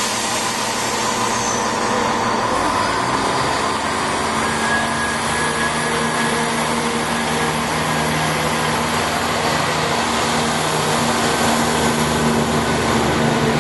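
Southern Class 171 Turbostar diesel multiple unit pulling slowly past: its underfloor diesel engines and transmission run with a steady hum, joined by wheels on the rails. It grows slightly louder near the end.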